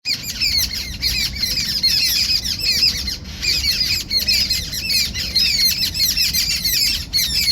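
A large flock of birds chirping and squawking all at once: a dense, unbroken chatter of many overlapping short, high calls, with a brief lull about three seconds in.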